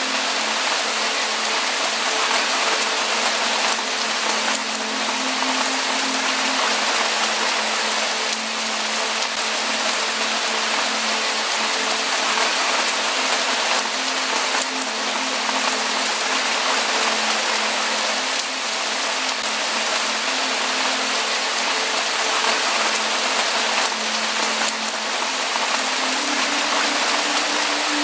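Steady rain falling, an even hiss of many drops with no thunder and no breaks. A few faint, steady low tones sit underneath and shift slightly near the end.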